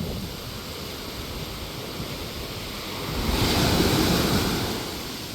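Ocean surf on a beach: one wave breaks and washes in, swelling about three seconds in and dying away a second or so later, over a low rumble of wind on the microphone.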